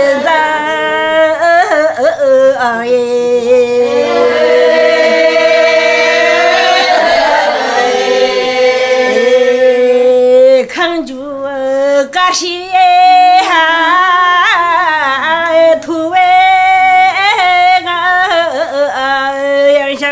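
An elderly Tibetan woman singing unaccompanied, holding long wavering notes, with a brief pause about halfway through.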